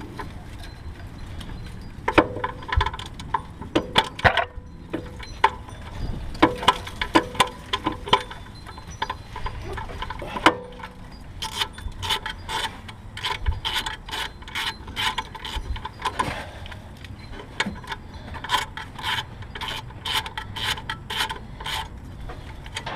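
Ratchet wrench clicking in quick runs while undoing a nut on an alternator, with scattered knocks of tool on metal.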